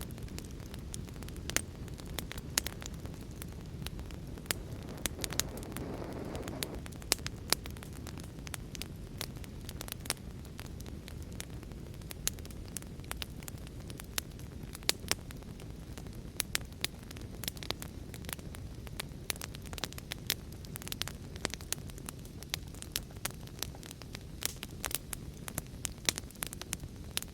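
Wood fire crackling with frequent sharp pops over a steady low rush of heavy rain, with a brief swell of noise about six seconds in.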